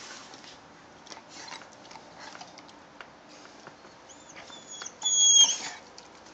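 Squeaky dog toy squeaking: a few faint clicks and rustles, then two short high squeaks about four seconds in and a longer, louder squeak a second later.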